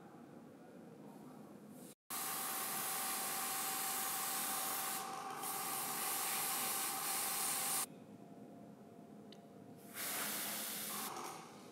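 Airbrush spraying body paint: a steady hiss of air with a faint steady tone under it. It starts about two seconds in, runs for about six seconds, stops, and comes again briefly near the end.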